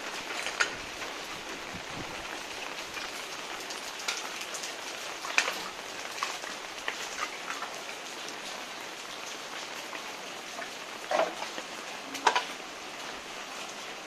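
Steady hiss of water falling on wet paving, with a handful of short, sharp louder taps.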